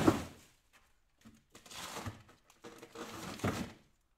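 Plastic bags of frozen meat crinkling and rustling as hands rummage through a chest freezer, in two spells of about a second each, with a sharp knock right at the start.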